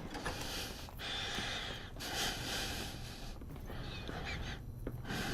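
A person breathing heavily, in and out in hissy breaths about a second long.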